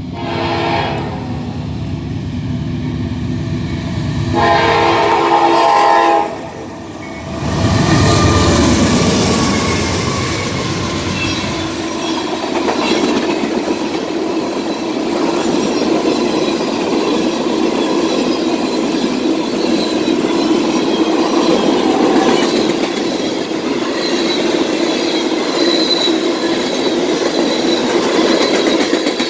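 Norfolk Southern freight train approaching and passing: its horn sounds over the first six seconds, loudest in a long blast from about four seconds in. About eight seconds in, the locomotives go by with a heavy rumble, followed by a long string of tank cars rolling past with a steady clickety-clack.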